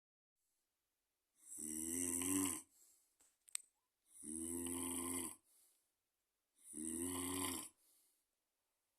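Snoring: three even snores, each about a second long and roughly two and a half seconds apart, each followed by a short, softer breath out. A single sharp click falls between the first and second snore.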